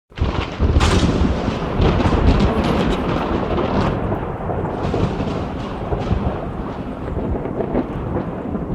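A thunderclap: a sudden loud crack about a second in, followed by a long rolling rumble of thunder that carries on without a break.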